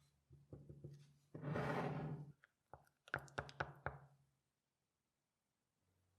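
Workshop handling sounds: a few soft knocks, then a brief hiss-like rush lasting about a second, then a quick run of sharp clicks and taps, after which it falls quiet.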